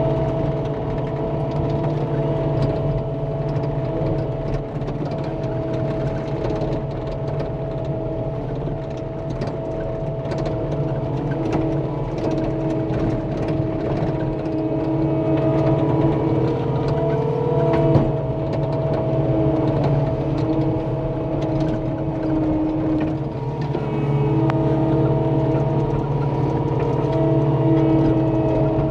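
Cat 259D compact track loader running steadily under work, its diesel engine and hydraulics holding a constant drone with a whine, as it grades loose dirt. A single brief knock about two-thirds of the way through.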